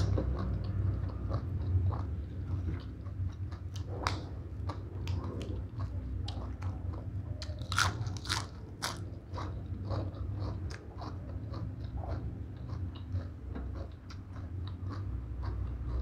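Close-miked chewing and crunching of mouthfuls of papaya salad and raw lettuce leaf: a dense run of wet, crisp mouth clicks and crunches, loudest about four seconds in and again around eight to nine seconds, over a steady low hum.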